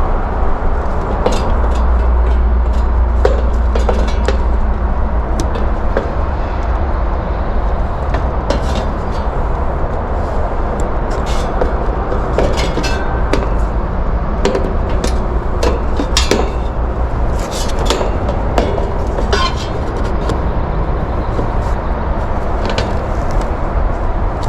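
Small clicks, taps and scrapes of hand work on an outdoor heat pump's control panel as its defrost control board is removed, scattered irregularly over a steady low rumble.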